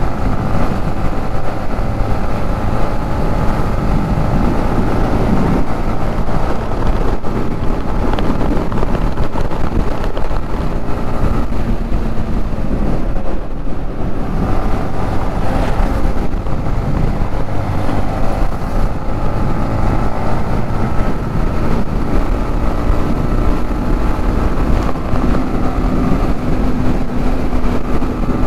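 Motorcycle engine running steadily while riding, with wind buffeting the microphone; the engine's pitch drifts gently up and down with speed.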